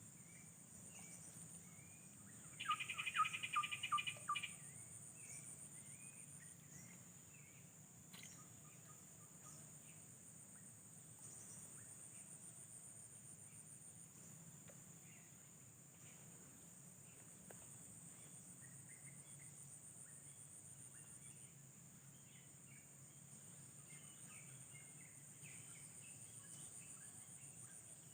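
Faint, steady high-pitched drone of insects, such as crickets, calling outdoors. About three seconds in there is a brief, louder run of rapid, sharp chattering notes.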